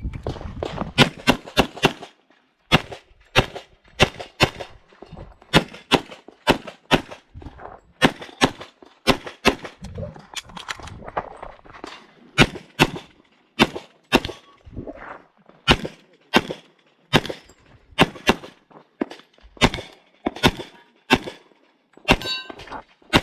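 A .40 S&W competition pistol, an STI 2011, fires a long string of shots, mostly in quick pairs and clusters. There are short pauses between groups and a sparser stretch about ten seconds in.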